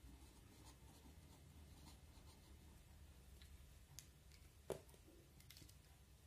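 Faint scratching of a marker pen writing on paper against a clipboard, over a low hum. One sharper click comes about three-quarters of the way through.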